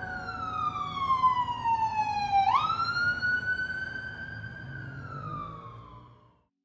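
Emergency-vehicle siren wailing: its single tone falls slowly, sweeps back up sharply about two and a half seconds in, holds, then falls again and fades out near the end, over a low rumble.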